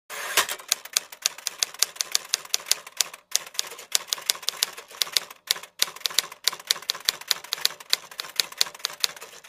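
Typewriter typing sound effect: a fast, uneven run of sharp key clicks, about four a second, with two brief pauses.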